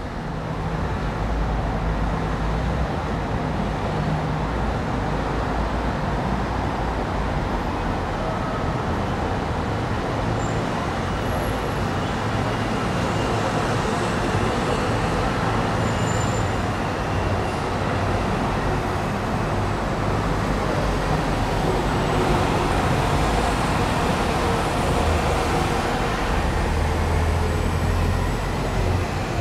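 Steady city street traffic noise: motor vehicles running and passing, with a low engine rumble that swells a few seconds before the end.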